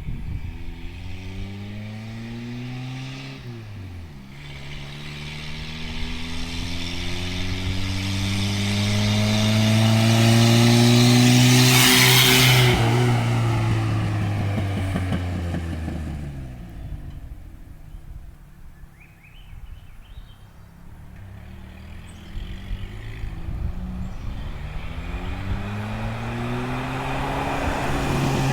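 Toyota pickup's turbocharged 22R-E four-cylinder under power, with the raspy brrr of an exhaust leak at the turbo wastegate. The engine note climbs, drops about four seconds in like a gear change, climbs again to its loudest with a rush of noise about halfway through, then falls away and quietens before climbing again near the end.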